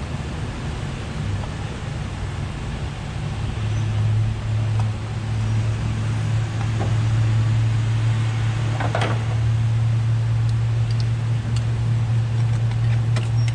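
A steady low mechanical hum that grows stronger a few seconds in, with scattered small clicks and a short scrape from hand tools working loose a screw on the intake.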